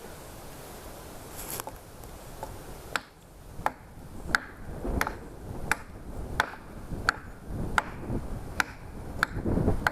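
Repeated sharp strikes of a bushcraft knife, evenly spaced at about one and a half a second, starting about three seconds in.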